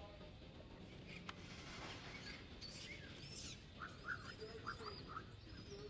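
Faint outdoor sound: a short rustle, then four or so quick, squeaky animal calls, with thin high chirps above them.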